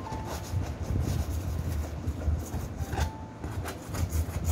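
Metal palette knife scraping and smearing thick acrylic paint across a stretched canvas in a series of short strokes, over a steady low hum.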